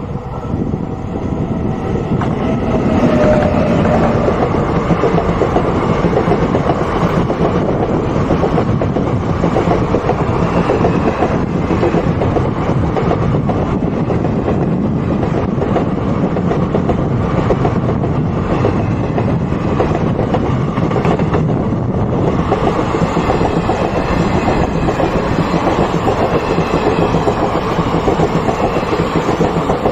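Indian Railways train running on the rails, its wheels rumbling and clattering over the track in a loud, steady din that builds up over the first few seconds.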